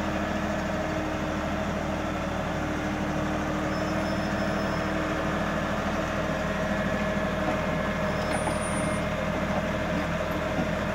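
Kioti NX6010 tractor's diesel engine running steadily as the tractor creeps slowly along a dirt trail.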